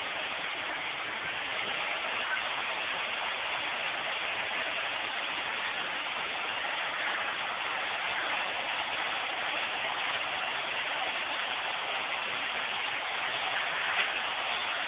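Vacuum cleaner running steadily with a constant rushing noise.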